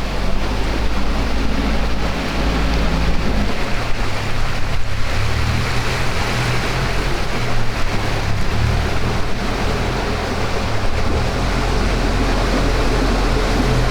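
A tour boat's motor running steadily under way, with water rushing past the hull and wind buffeting the microphone.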